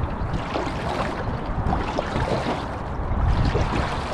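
Water rushing and splashing along a sprint canoe's hull as the kneeling paddler drives the paddle through the water, with a steady low rumble of wind on the microphone.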